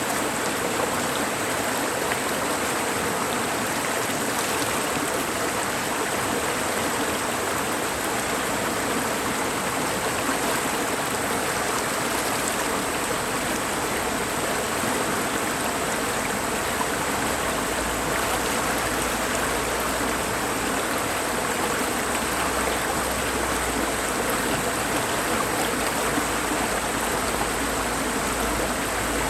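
Mountain valley stream flowing steadily over rocks, a constant rush of water. A low rumble comes in a little over halfway through.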